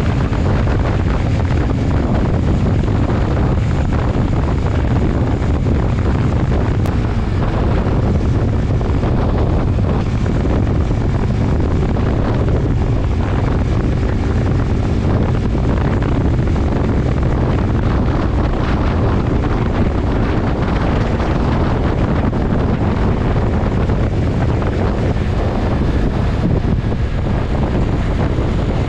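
Heavy wind buffeting on a GoPro microphone at highway riding speed, with a motorcycle engine running steadily underneath.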